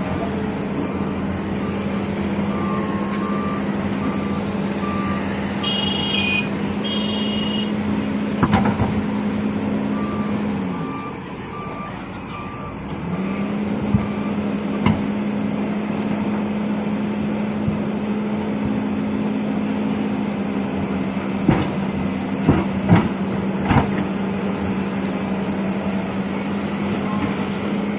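Heavy-equipment diesel engine running steadily, dropping off for a couple of seconds about 11 seconds in and then picking back up, with a reversing alarm beeping in steady pulses at the start and again around ten seconds in. Two short high tones sound near six and seven seconds, and a few sharp knocks come near the end.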